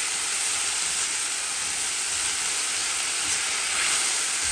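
Sliced champignon mushrooms and onions sizzling steadily in vegetable oil in a frying pan as a silicone spatula stirs them. The pan is frying nearly dry: the unwashed mushrooms have soaked up the oil and given off no liquid.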